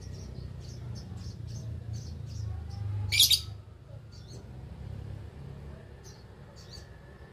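Lovebirds chirping in short, quick, high calls, with one much louder harsh call about three seconds in.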